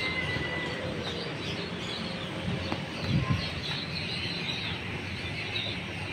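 Birds chirping continuously, many short high calls overlapping, with a couple of soft low thumps about three seconds in.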